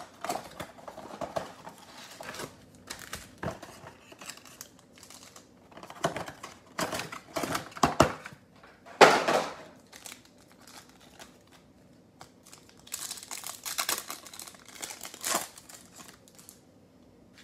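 Cardboard of a Panini Select Football mega box and its foil card packs handled, giving irregular rustles and crinkles with one loud rustle a little after halfway. Near the end a foil pack of trading cards is torn open with a run of crinkling.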